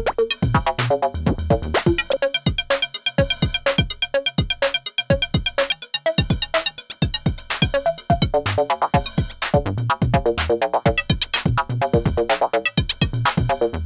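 Modular synthesizer sequence: short plucky oscillator notes stepping through a repeating pattern at about four a second, driven by the Tobinski step sequencer, with drum-machine beats synced to it. The pattern is shifting as the sequencer's steps are rearranged.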